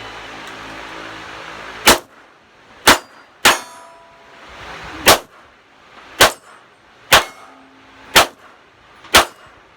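Glock 17 9mm pistol firing 147-grain American Eagle rounds: eight shots, mostly about a second apart, with the third coming quickly after the second, a timed string of fire.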